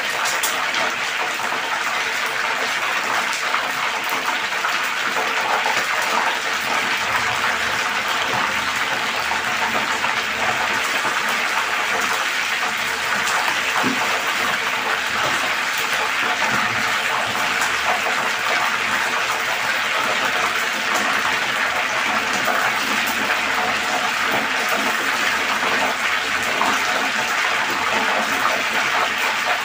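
Trevally (talakitok) fillet deep-frying in a wok of hot oil: a steady, even sizzle that holds unchanged throughout.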